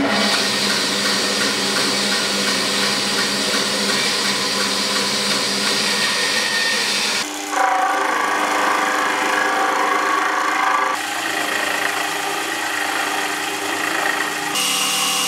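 Band saw running and cutting a pine block, then a small milling machine's spindle running as its end mill cuts into the wood. Steady machine noise with a hum of several steady tones, its character changing abruptly about seven, eleven and fourteen and a half seconds in.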